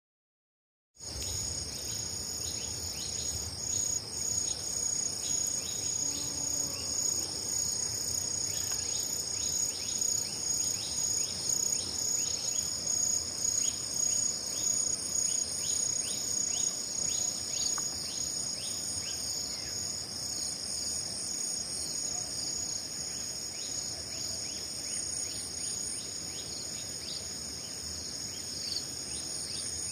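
Chorus of field insects, crickets among them, shrilling steadily at a high pitch in several layered tones, with quick repeated chirps over it. It starts suddenly about a second in.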